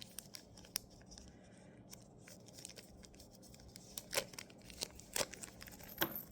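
Small charm packaging being opened by hand: crinkling and tearing with a string of sharp little clicks and snaps, the loudest about four, five and six seconds in.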